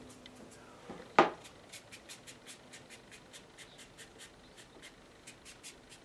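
Hake brush strokes on watercolour paper: short, quick dabs repeating about four or five times a second, after one sharp tap about a second in.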